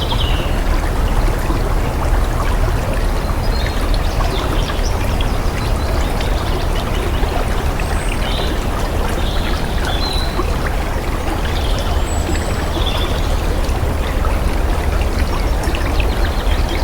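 Water flowing and splashing steadily, like a stream or small cascade. Short high chirps come now and then over the top.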